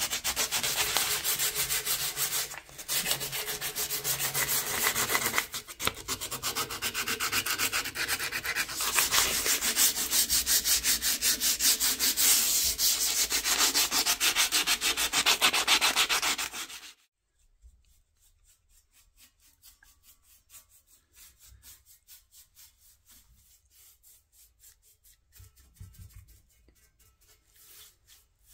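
Sandpaper rubbed by hand back and forth over a metal garden-bench frame in fast, short strokes, a dense scratchy hiss that stops abruptly a little over halfway through.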